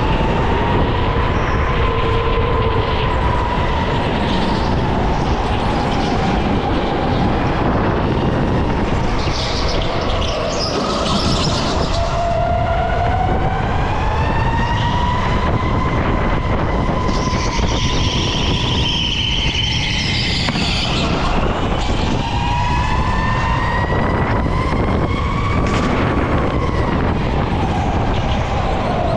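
Electric go-kart motor whining, its pitch rising and falling again and again as the kart speeds up and slows down, over a steady rush of tyre and wind noise.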